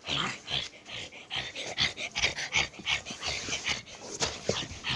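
Dogs playing, making a quick, irregular run of short, high-pitched vocal sounds mixed with sharp clicks.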